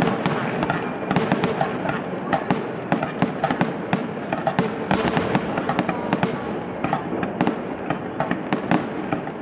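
Fireworks display: a dense, continuous barrage of pops and crackling bursts with no break.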